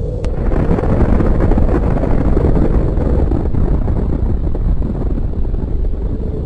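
Deep rumbling roar of a nuclear explosion, swelling about half a second in after a sharp crack and then rolling on loudly.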